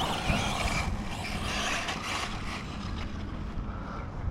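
Electric RC buggy driving on dirt: a high motor whine rising and falling with the throttle over a steady rushing noise.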